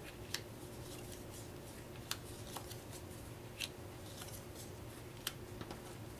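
Paper game cards being handled and spread on a wooden table: faint sliding and rustling broken by a handful of sharp clicks as card edges snap and tap, the louder ones about a second or two apart.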